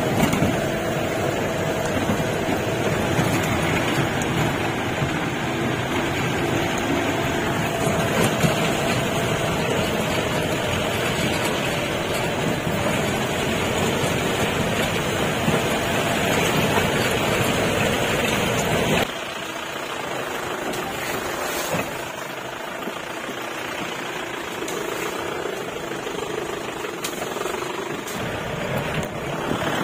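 Safari jeep's engine running, a steady dense mechanical noise. About two-thirds of the way through, the sound drops abruptly to a quieter, thinner noise with little deep rumble.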